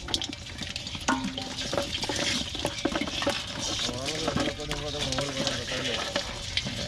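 Live crabs scrabbling among snails and small fish in a basin, with a hand sorting through the catch: a steady crackle of many small clicks and scrapes.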